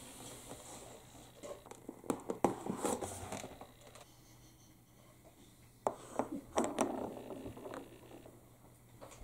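Marbles rolling down a wooden HABA marble run track, clacking and rattling against the wood in two runs of quick clicks, the second starting about six seconds in.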